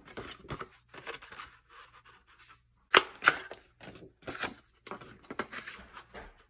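Scissors cutting paper, with rustling and scraping of the sheet and two sharp snips about three seconds in.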